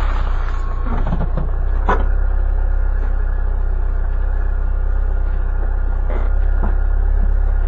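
Tyre and road noise picked up from underneath a Nissan Kix 4WD, close behind a wheel, as it drives over a leaf-strewn road: a deep steady rumble with a couple of sharp knocks, one about two seconds in and another around six seconds.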